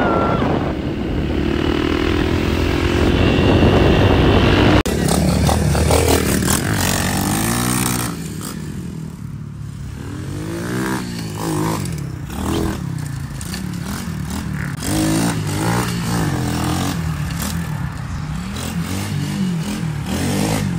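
Motorcycle riding along a road, engine and wind noise steady for the first few seconds. Then, after a sudden change, a small pit bike's engine revs up and down over and over, about once a second, as it is ridden.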